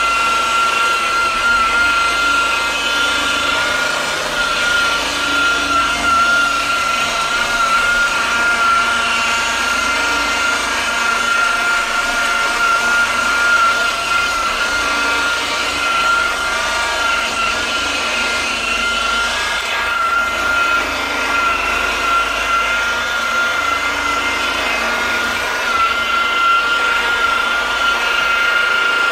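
An electric power tool running steadily, with a high whine that wavers slightly in pitch over a constant rushing noise.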